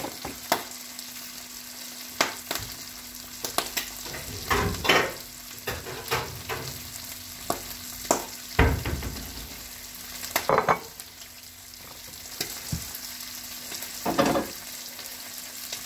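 Bacon sizzling in a frying pan on a gas stove, a steady hiss, under sharp clicks and several louder clunks of pans and utensils being handled.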